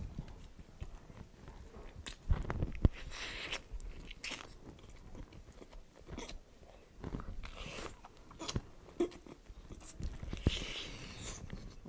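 Close-up eating sounds of a man biting, tearing and chewing pieces of cooked duck: wet smacks and crunches in a string of separate bites, loudest a couple of seconds in.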